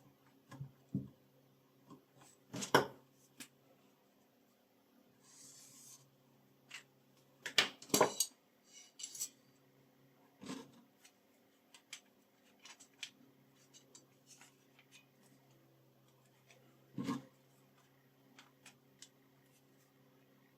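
Scattered metallic clicks and clacks of a knife and sharpening gear being handled, with a short scraping stroke about five seconds in. A faint steady hum sits underneath.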